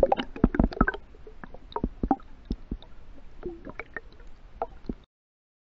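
Stream water splashing and sloshing as a brown trout is released by hand: a string of sharp splashes and knocks, dense in the first second, then sparser. It cuts off suddenly about five seconds in.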